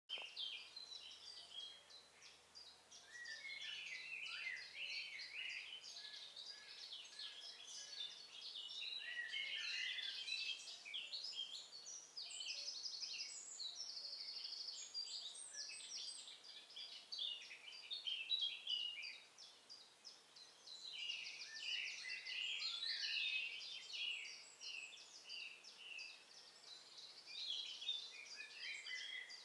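Several small birds singing at once, a dense chorus of overlapping chirps and trills, thinning briefly about two-thirds of the way through.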